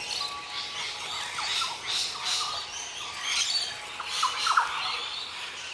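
Many birds chirping and squawking together: a busy, overlapping chorus of short calls and quick whistled glides.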